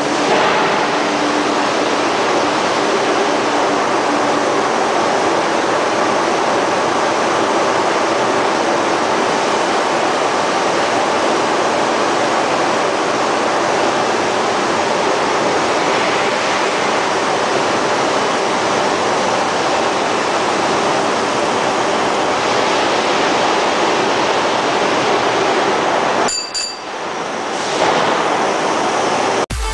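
Steady, loud rushing factory noise with no distinct hammer blows. It drops briefly about 26 seconds in and cuts off abruptly just before the end.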